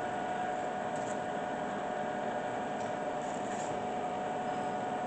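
Bridgeport 2J variable-speed vertical milling machine running under power, a steady whine over an even mechanical hum, with a couple of faint ticks.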